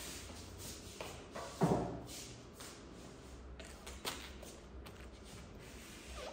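Handling noises as a head of cabbage is moved about on a table: light rustling of its leaves, a soft thud about one and a half seconds in and a sharper knock around four seconds in.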